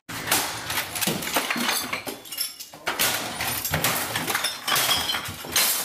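Repeated crashing and clattering as things on a desk are smashed with a stick, with glass clinking and objects breaking.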